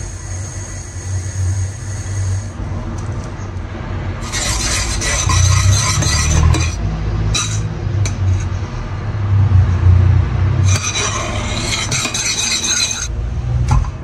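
A metal spoon stirring and scraping in a stainless steel pan of thick, foamy honey mixture, in two spells of a couple of seconds each with a few light clinks, over a steady low hum.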